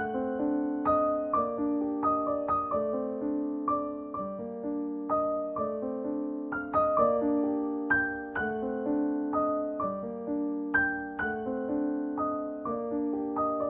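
Background music: a gentle piano piece, notes struck and left to ring and fade, with chords sounding under the melody.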